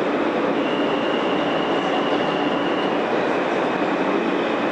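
R160 subway car running at speed, heard from inside the car: a steady, dense rumble and rush of wheels on rail. A faint thin high tone rides over it for about two and a half seconds, starting about half a second in.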